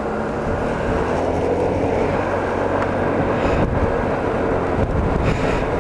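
Yamaha X-City 250 scooter's single-cylinder engine running at a steady cruising pitch while riding, under a steady hiss of wind and tyres on the wet road.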